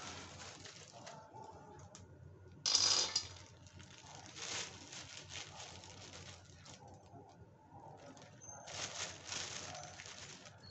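Peanuts roasting in a metal kadhai, stirred with a metal spatula: the nuts rattle and the spatula scrapes across the pan in several short bursts, the loudest about three seconds in.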